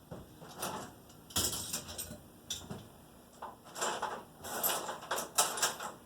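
Tools and parts being shifted and set down on a workbench: an irregular run of knocks, clatters and short scrapes while the bench is cleared.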